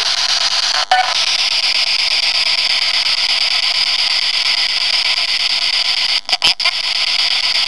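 Spirit box radio sweep: steady, loud static hiss, chopped by a brief break about a second in and a quick run of breaks around six seconds in, with a faint fragment of a voice or tone after the first break.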